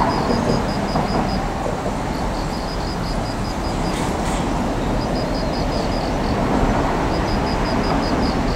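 Distant demolition excavator at work on scrap metal: a steady low engine rumble, a faint metallic scrape about four seconds in, and a high beeping chirp that repeats in short quick runs.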